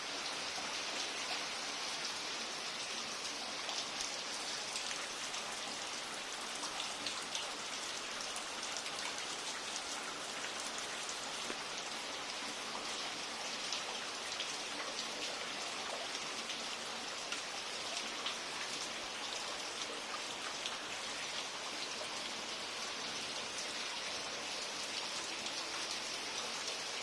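Steady rain falling, with a constant hiss and many separate drop hits close by.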